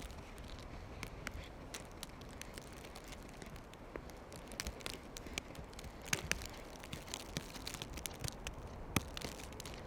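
Footsteps crunching through fresh snow, heard as irregular crackles over a steady low rumble.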